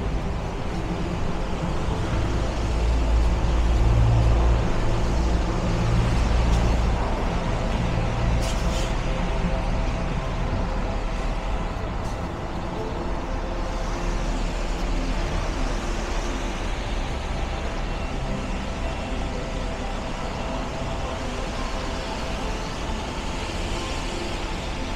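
City street traffic, with a heavy vehicle's engine rumbling loudest about two to seven seconds in.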